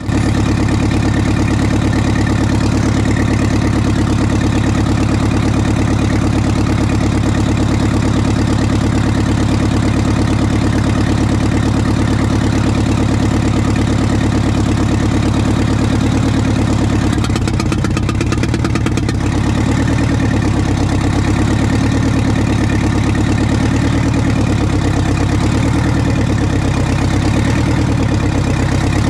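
Detroit Diesel 8V92 two-stroke V8 idling steadily with its valve covers off. A little past halfway its note turns slightly uneven.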